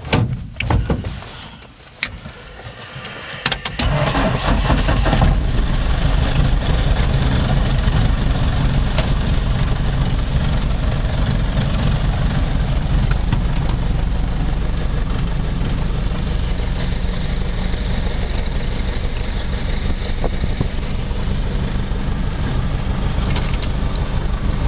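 Light floatplane's piston engine starting: a few seconds of irregular clicks, then it catches about four seconds in and runs steadily at idle.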